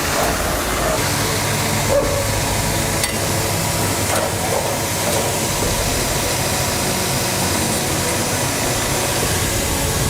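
Steady background machinery noise of a woodworking shop, a hiss with a low hum under it, and a couple of light knocks.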